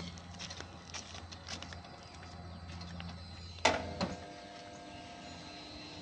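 Electric hoist of a 7.5-ton goliath crane worked by radio remote: a steady electric hum, a loud clunk a little past halfway with a smaller knock just after, then the motor running with an added higher steady hum.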